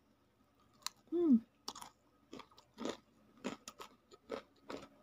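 A person chewing a mouthful of batter-fried tempeh: irregular crunching chews, about two a second. About a second in there is a short hummed 'mm' that falls in pitch.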